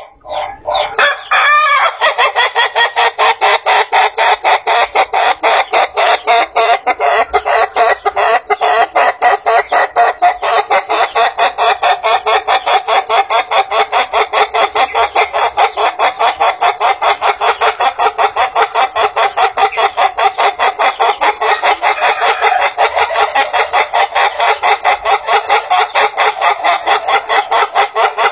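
Ayam Ketawa (laughing rooster) cock crowing, starting about a second in, in one long unbroken crow of rapid, evenly repeated staccato notes. The breed is prized for very long crows that sound like a human laugh.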